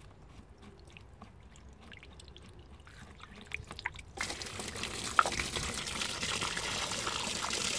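Water from an Intex sand filter tank pours steadily out of its opened drain port onto a wooden board, starting suddenly about four seconds in. It is preceded by a few faint clicks of the drain cap being handled.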